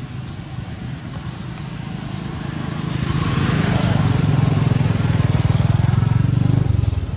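A motorcycle engine running close by, growing louder over the first few seconds and dropping off suddenly near the end.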